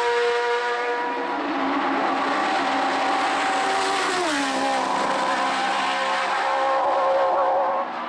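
Hill-climb racing car engine running hard at high revs. Its pitch drops once about four seconds in, then holds steady.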